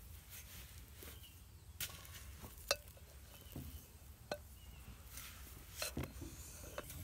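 Silicone spatula mixing sugar and coconut oil in a glass bowl: quiet scraping with a handful of sharp clicks where the spatula knocks against the glass.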